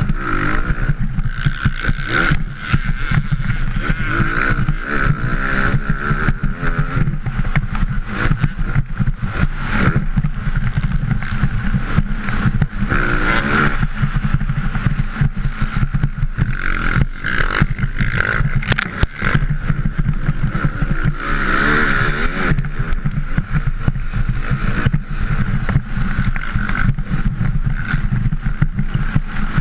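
Motocross bike engine at racing speed, its pitch rising and falling several times as the throttle opens and closes through the turns and straights, heard close from a helmet-mounted camera. The sound is choppy, with many short breaks and jolts.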